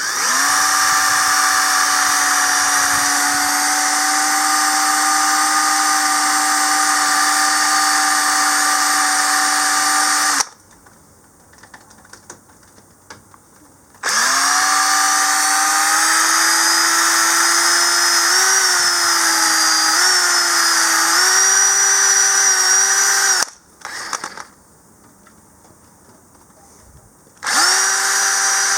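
Drill spinning a cotton bud loaded with metal polish inside a corroded XT60 connector socket, polishing the oxidised brass contacts. It runs three times: a long steady whine of about ten seconds, a second run of about nine seconds whose pitch wavers and steps up, and a short run near the end.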